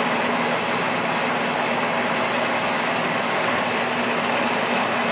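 Steady machinery hum: an even noise with a low drone that holds unchanged.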